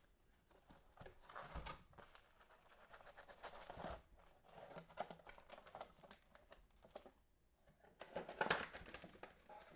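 Plastic cellophane wrapper of a trading-card cello pack crinkling and tearing, with cards being handled, in faint, irregular rustles. The loudest bout comes about eight seconds in.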